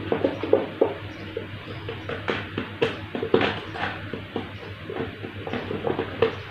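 Hands and a screwdriver working on the wiring terminals of a plastic magnetic contactor and thermal overload relay: irregular small clicks, taps and scrapes, over a steady low hum.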